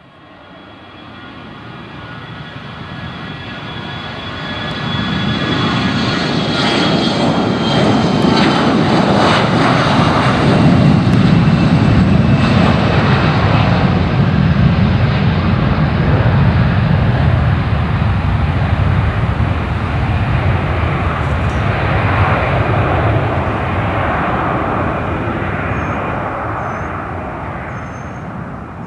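Bombardier CRJ regional jet on its takeoff roll and climb-out. The roar of its twin rear-mounted turbofans builds over the first few seconds to a loud, steady level, with a high whine that falls slightly in pitch. The roar then fades in the last few seconds as the jet climbs away.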